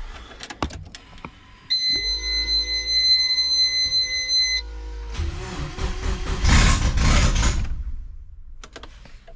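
Subaru EJ20 engine being cranked by the starter motor, a steady whine for about three seconds. It then catches and runs briefly with a loud, rough exhaust blowing out of the open oxygen-sensor port, a huge exhaust leak, and dies away near the end.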